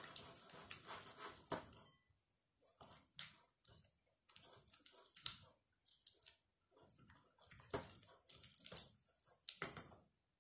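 Faint, sticky clicking and squelching of slime being stirred and pulled with a spatula in a glass bowl, coming in irregular strokes with short pauses between.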